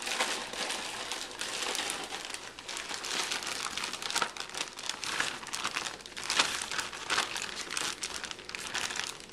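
Plastic zip-top bag crinkling and rustling without pause as it is shaken and handled, tossing raw chicken tenders in seasoned flour to coat them.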